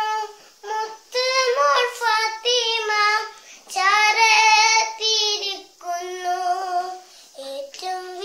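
A young girl singing unaccompanied in a high voice, short phrases with held, wavering notes and brief pauses between them.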